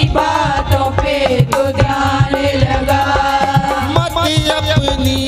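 Instrumental Hindi worship music: a steady hand-drum beat under held melody notes.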